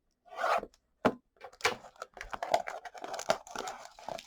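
Plastic trading-card packaging being torn open and crinkled by hand: a first rip, a sharp snap, then steady irregular crackling of the wrapper.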